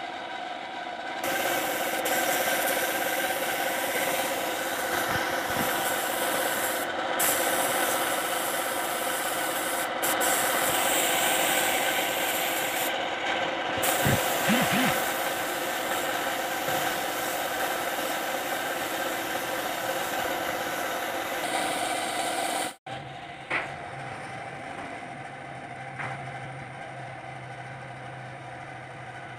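Compressed-air spray gun hissing as primer is sprayed, the hiss stopping and starting several times over a steady machine hum. Near the end the sound cuts off abruptly and a quieter low hum follows.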